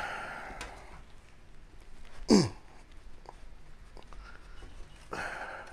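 A man breathing hard with effort while forcing a thick brass bugle bell flare on a steel bell mandrel. A breathy exhale comes at the start, a short grunt with falling pitch about two seconds in, and another exhale near the end, with a few faint light clicks of metal in between.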